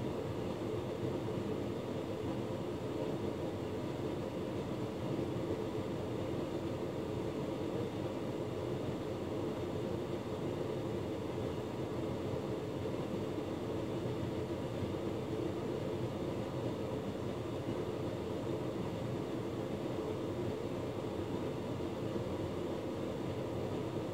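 Hotpoint Ultima S-Line tumble dryer running a drying cycle: steady hum and whoosh of the motor, fan and turning drum.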